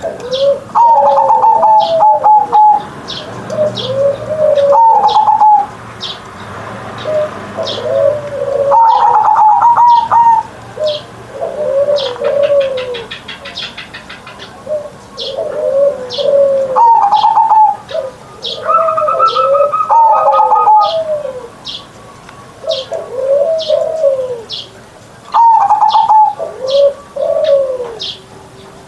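Zebra dove (perkutut) cooing over and over in full song: each phrase opens with a higher note and runs into a string of lower rolling coos. Short high chirps repeat through it.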